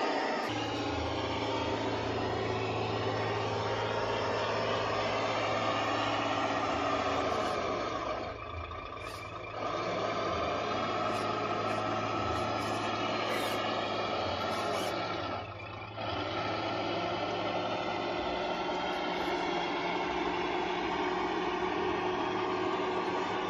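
Radio-controlled model construction vehicle running with a steady mechanical whine and hum. The sound drops away briefly twice, about a third and about two-thirds of the way through.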